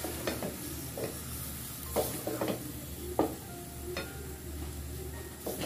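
Wooden spatula stirring boiled pasta in an aluminium pot, scraping and knocking against the pot at irregular moments, over a light sizzle from the oil in the pan.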